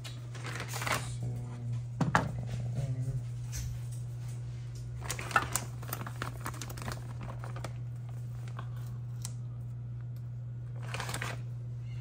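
Handling of food packaging: scattered crinkling of plastic wrap, with clicks and light taps coming in short clusters, over a steady low hum.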